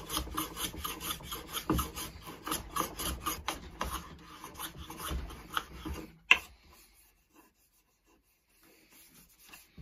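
Small hand plane shaving solid ash in quick, repeated short strokes, about three a second, as a glued-in patch is planed flush. The strokes stop about six seconds in with one sharp knock.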